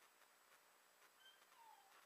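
Near silence: the room tone of a quiet church sanctuary, with a faint short squeak that falls in pitch near the end.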